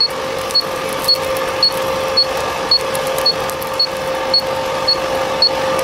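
Mikrosha 3000 induction heater running: its intermittent signal beeps short and high about twice a second, showing that heating is on, over a steady hum.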